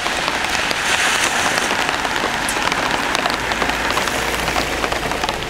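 Steady rain falling, with many close raindrops ticking sharply on a surface. A faint low hum comes in about three seconds in.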